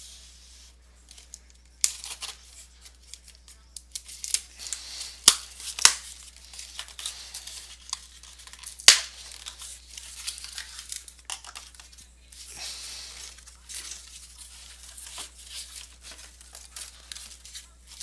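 A taped cardboard shipping case being opened by hand: tape tearing, cardboard flaps rustling and scraping, and several sharp taps and knocks as the sealed card boxes inside are pulled out and stacked.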